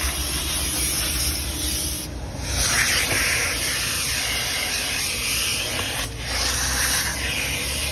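Car-wash vacuum sucking through a hose and red crevice nozzle as it is dragged over a carpeted floor mat, a steady hissing rush with the nozzle scraping the carpet. The rush drops out briefly twice, about two and six seconds in, as the nozzle shifts.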